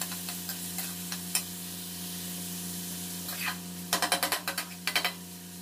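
Chopped onions frying in mustard oil in a kadhai, sizzling steadily while a steel spatula stirs them. Near the end come two quick runs of clicks as the spatula scrapes and taps the pan, over a steady low hum.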